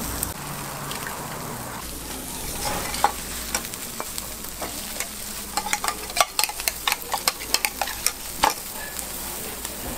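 Food sizzling steadily on a flat-top steel griddle. From about halfway through until near the end there is a quick run of sharp metallic clicks, from a metal utensil being stirred in a stainless steel cup.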